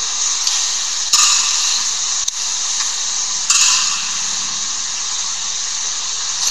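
Steady hiss, with two brief louder swells about one second and three and a half seconds in.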